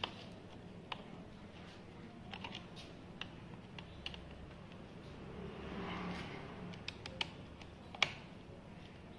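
Scattered light clicks and taps of hands fitting a motorcycle battery's terminal connections, with one sharper click about 8 seconds in.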